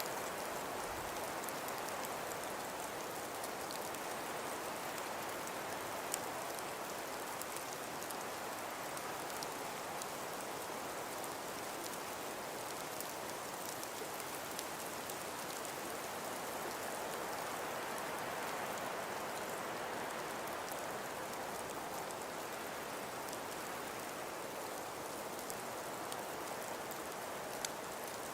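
Steady hiss of wind and falling snow that swells and eases slowly, with faint scattered ticks.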